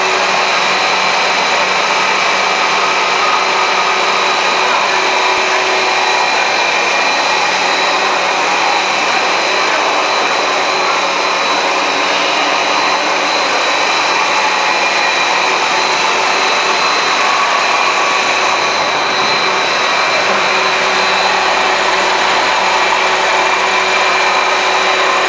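Puffed corn snack extrusion line running: electric motors and fans give a loud, steady whir with a couple of high, steady whines.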